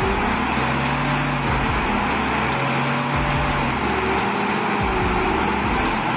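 Engine of a heavy vehicle running steadily under load, a continuous drone whose low notes shift slightly up and down.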